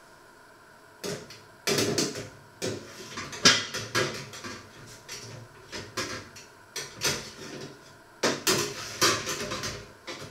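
Metal baking tray clattering and scraping into an oven: a run of irregular knocks and rattles from the tray on the oven rack and the oven door.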